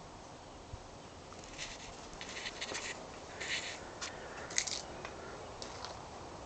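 Footsteps crunching on gravel: a handful of short scuffs between about a second and a half and five seconds in, the loudest near four and a half seconds, over a steady faint background hiss.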